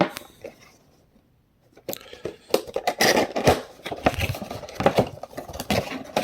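Funko Pop packaging being opened by hand: a few clicks, a short pause, then continuous rustling, scraping and crinkling of cardboard and plastic with sharp clicks.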